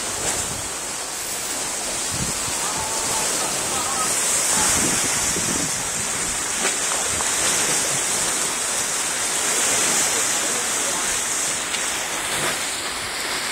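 Steady rushing noise of sea surf and wind at the shore, with faint voices in the background.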